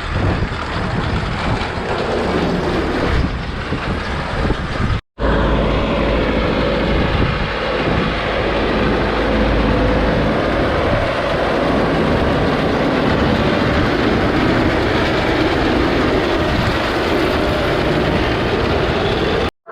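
Hay-baling farm machinery running steadily with a loud, even mechanical noise. The sound drops out abruptly for an instant about five seconds in, then carries on.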